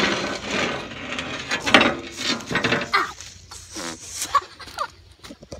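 Wooden trap door being hauled open: rough scraping and rubbing of wood on wood and dry leaves, thinning to scattered knocks and rustles about three seconds in.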